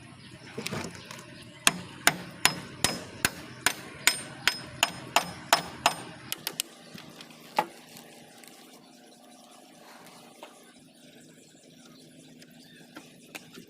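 A hammer striking parts of a power tiller gearbox: about a dozen sharp blows at a steady pace of roughly three a second, then a few scattered taps before it stops.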